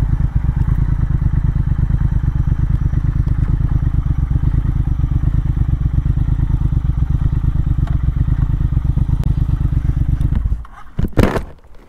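Triumph Speed Twin's parallel-twin engine idling with an even, steady beat, then switched off about ten and a half seconds in. A few knocks and rustles follow near the end.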